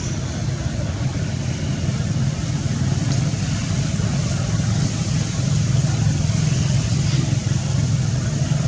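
A steady low engine drone, like a motor vehicle running nearby, with a couple of faint high ticks about three and seven seconds in.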